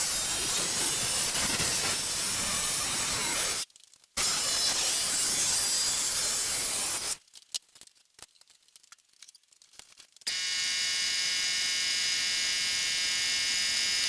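Metal being worked on a car hood: a steady abrasive rasping, broken off twice by cuts, then faint clicks, then a steady high-pitched buzzing whine of a small power tool running for the last few seconds.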